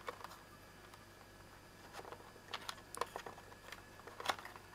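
Faint clicks and rustles of plastic multi-pin wire connectors and their leads being handled, in small clusters, the sharpest click near the end.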